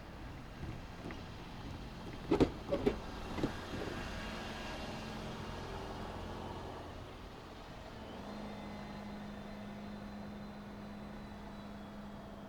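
A road vehicle crossing a railway level crossing, its tyres thumping over the rails four times in quick succession a couple of seconds in, with steady traffic noise around it. A steady low hum comes in at about eight seconds.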